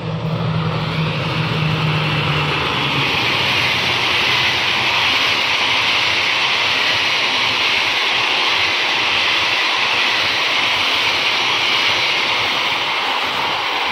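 Passenger train passing close by. A diesel locomotive's low engine drone fades over the first two or three seconds, then comes the steady loud rush of the coaches' wheels on the rails.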